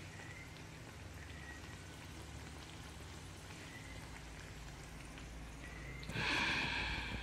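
Bread pathiri deep-frying in a pan of oil, a steady crackling sizzle. About six seconds in, a louder call-like sound with several pitches lasts under a second.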